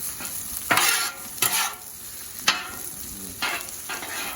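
Sisig of pork, onions, jalapeños and egg sizzling steadily on a hot cooking surface, with a spatula stirring and scraping through it in a few short strokes.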